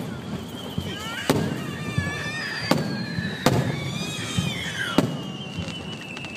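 Fireworks shells bursting in the sky: four sharp bangs a second or so apart, each with a short echo, while a high whistle slowly falls in pitch.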